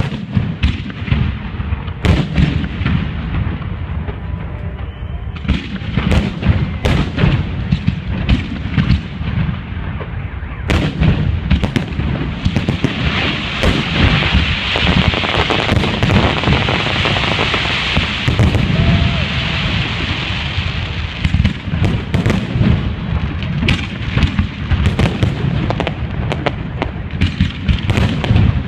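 Fireworks display: shells bursting in quick succession, a dense run of bangs and booms. Roughly halfway through, a few seconds of steady hiss rise over the bangs.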